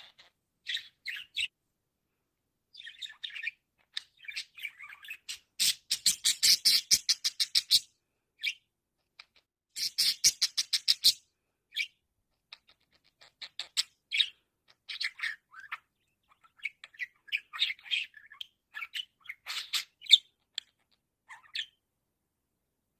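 Budgerigar chattering and warbling in short, irregular bursts of high chirps, broken by two runs of fast scratchy clicking about six and ten seconds in.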